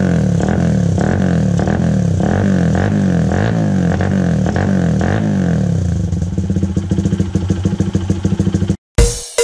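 Honda Sonic 125 motorcycle running loud through an OPBR racing exhaust tip with a mesh baffle, steady for about six seconds, then turning choppy and uneven before it cuts off. A drum beat starts near the end.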